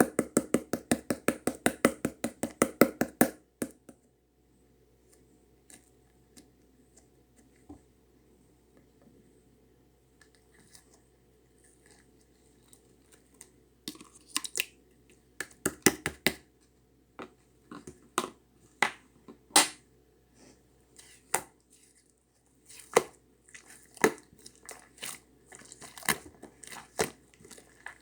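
Rapid, even knocking or tapping, about six strokes a second, that stops after about three and a half seconds. After a quiet stretch, irregular crinkling, crunching and clicking handling noises follow.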